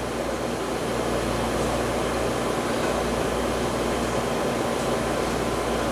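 Steady whirring noise of a running fan, with no clear breaks.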